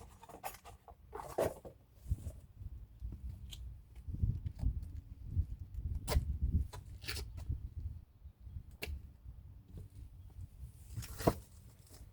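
Scattered light clicks, taps and short scrapes of brake hardware clips being handled and fitted onto a caliper bracket, over a low rumble.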